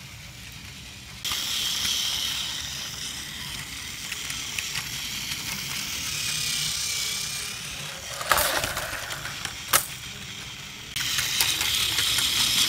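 Motorized toy Thomas the Tank Engine, run on one AA battery, whirring along plastic track with its small motor and gears. The whir starts about a second in, drops away near eight seconds with a couple of sharp clicks, and starts again near the end.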